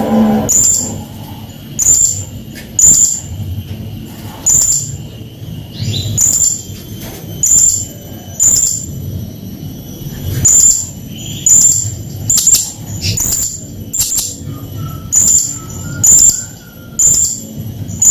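Blue-crowned hanging parrot (serindit) giving short, very high-pitched shrill calls, about one a second, over and over.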